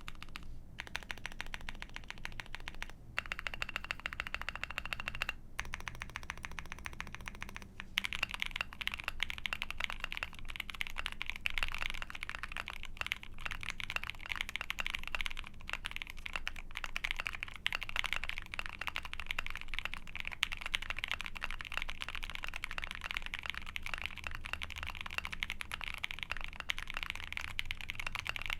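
Typing on an Ai03 Vega mechanical keyboard with a POM plate, IFK OG keycaps and linear frankenswitches (OP Black housings with Husky stems and 63 g slow springs, lubed with Krytox 205g0). Steady keystrokes with a few brief pauses over the first eight seconds or so, then faster, denser and louder typing.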